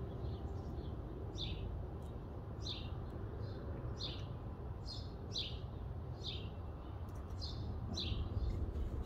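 A bird calling over and over: a short, high, falling chirp repeated a little over a second apart, with fainter notes in between, over a low steady background rumble.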